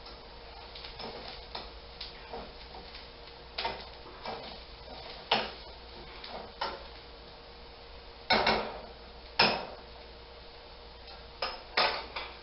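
Irregular kitchen clatter: scattered knocks and clinks of dishes and utensils, the loudest ones in the second half, over a faint steady hum.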